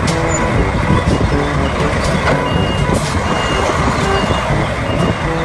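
Concrete mixer truck's diesel engine running as the truck moves slowly, with a few short high beeps over the low rumble.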